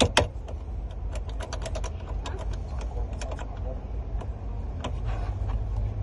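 A run of light, quick clicks and taps of small hard parts being handled at a car's steering column, many in the first two seconds and fewer after, over a steady low rumble.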